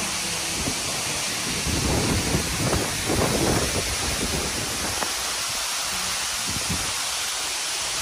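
Waterfall about 60 m high pouring into its pool: a steady rushing hiss, with an uneven low rumble underneath.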